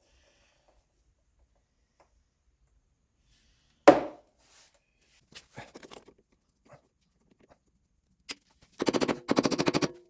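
Workshop tool noises: one loud knock about four seconds in, a few light clicks, then a fast, even rattle of clicks for about a second near the end.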